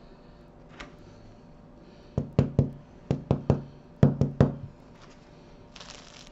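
Hand knocking on the crust of a baked sourdough loaf: nine knocks, each with a short low ring, in three quick groups of three. Near the end the crisp crust crackles as the loaf is squeezed.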